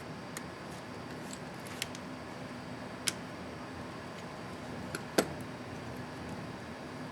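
A few short, sharp plastic clicks from a laptop keycap and its clips being handled and pressed on the keyboard, the loudest about five seconds in, over a steady low hiss.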